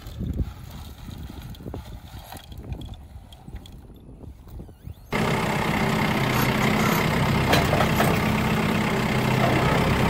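A walk-behind garden seed planter rattling and clicking as it is pushed through tilled soil. About five seconds in, this gives way abruptly to a Kubota loader tractor's diesel engine running steadily.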